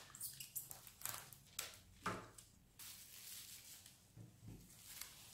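Plastic cling film being pulled off its roll and handled, a series of faint crinkling rustles followed by a short, steadier hiss of film sliding.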